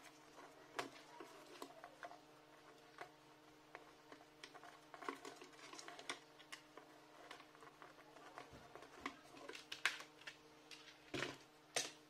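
Faint, scattered small clicks and taps of a plastic wire connector and a screwdriver being handled against an MDF speaker panel, a few sharper knocks near the end, over a faint steady hum.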